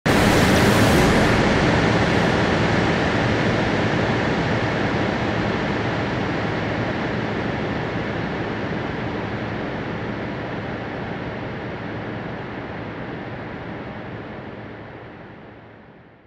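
Synthesized noise texture: a dense, rushing hiss with faint held tones inside it, fading slowly and growing duller as its highs die away, then dying out completely at the end.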